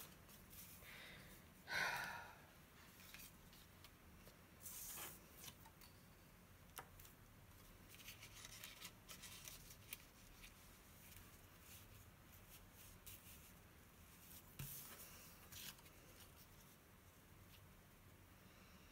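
Near silence with faint rustling and light taps of cardstock pieces being handled and laid in place on a card, with a slightly louder rustle about two seconds in.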